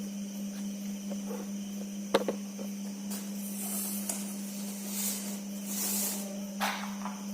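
Battery-powered toy train running with a steady motor hum and a faint high whine, with a sharp click about two seconds in.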